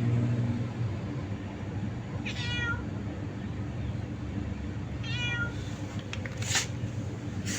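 A cat meowing twice: two short high-pitched meows about three seconds apart, over a steady low hum.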